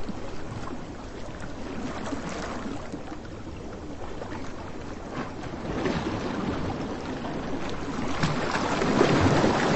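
Sea waves washing onto a beach, with wind. The surf swells about six seconds in and is loudest near the end.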